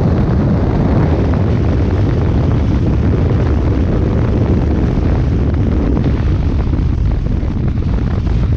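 Heavy wind rush buffeting the microphone over the Bajaj Pulsar RS 200's single-cylinder engine running hard at high speed on a flat-out run, a steady loud roar with no let-up.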